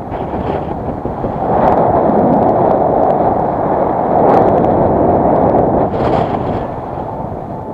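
Strong wind buffeting the camera microphone: a loud, even rushing that swells about one and a half seconds in and eases off near the end.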